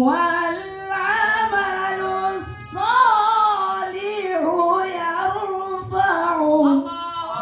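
A man's voice reciting the Quran in a melodic, drawn-out style, holding long notes that slowly bend and waver, with brief breaths between phrases.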